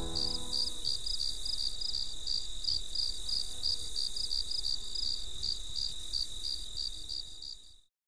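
Crickets chirping, about four chirps a second over a steady high trill, fading and then cutting off just before the end. A piano chord rings away during the first second.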